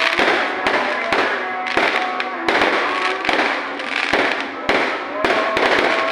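A fireworks barrage: a rapid string of sharp bangs, roughly two a second, over continuous crackling and hiss.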